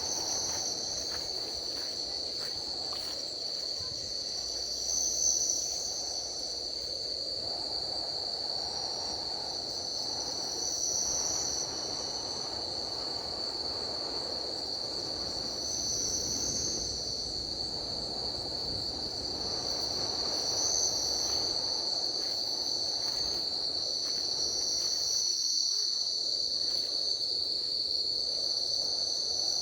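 Tropical forest insects: one shrills in a steady high-pitched drone, while another swells and fades every few seconds above it, over a low steady rushing background.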